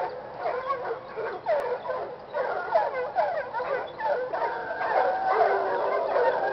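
A pack of hunting hounds baying together, many voices overlapping in a continuous chorus of yelps and drawn-out howls. The pack is in full cry, giving tongue as hounds do when running game.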